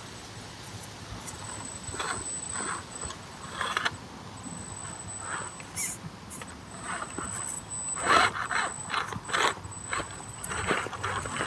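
Scale RC rock crawler (Vaterra Ascender chassis on SCX10 axles) creeping over rock. Its small electric drivetrain gives a thin high whine that comes and goes, while the tyres and chassis scrape and knock against the stone in irregular bursts. The bursts grow busier about eight seconds in.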